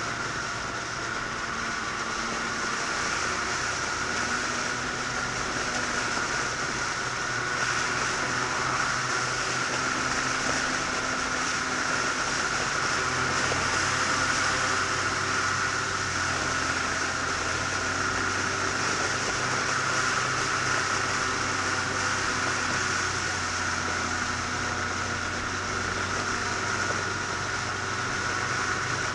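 Motorcycle cruising at a steady speed: wind noise over a steady engine hum.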